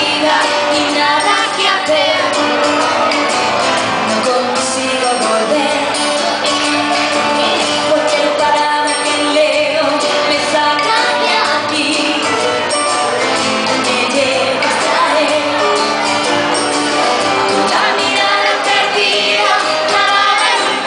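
A live pop song: a woman singing into a microphone over a band with acoustic and electric guitars.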